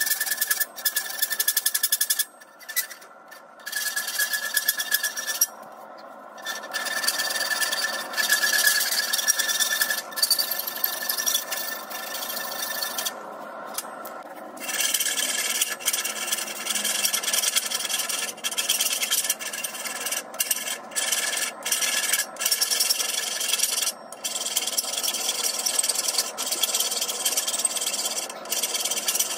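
Steel hand file rasping in repeated back-and-forth strokes over a forged half-inch steel round bar, smoothing its edges, with a few short pauses in the filing.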